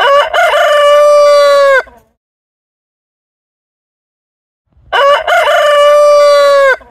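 Rooster crowing twice, about five seconds apart: each crow opens with short broken notes and ends in a long held note that falls away at the end.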